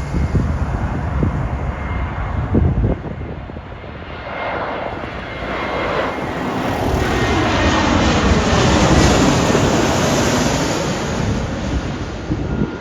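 Twin-engine Airbus A330 jet passing by. Its engine noise builds from about four seconds in, peaks around nine seconds with a sweeping, phasing tone, and eases off toward the end.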